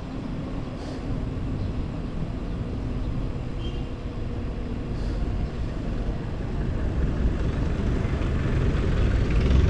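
Wind rumbling on the microphone and road noise while riding a bicycle, with traffic noise around, growing louder over the last few seconds.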